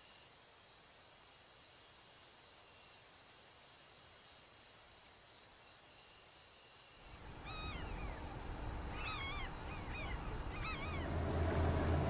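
Rainforest ambience: a steady high drone of insects, with a series of short chirping animal calls in three or four quick groups from about seven seconds in. A low steady hum comes in near the end.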